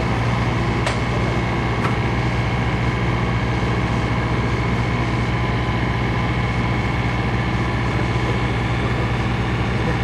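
XCMG XE15R mini excavator's diesel engine idling with a steady, even low hum.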